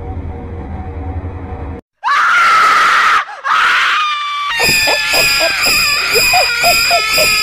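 A person gives a loud, high scream about two seconds in, frightened by a toy snake springing up out of a prank gift box, and a shorter cry follows. Electronic music starts about halfway through.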